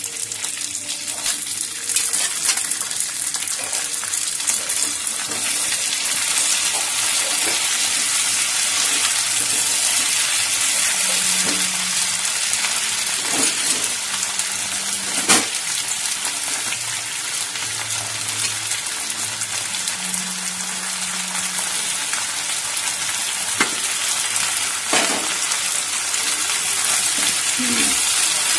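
Potatoes and just-washed green peas sizzling steadily in hot mustard oil in a nonstick kadai, stirred with a silicone spatula, with a few sharp clicks of the stirring against the pan.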